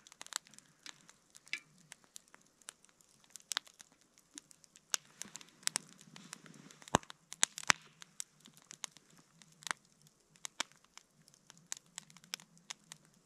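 Wood fire crackling in upright log-block fire logs, with irregular sharp pops, the loudest two about seven and eight seconds in.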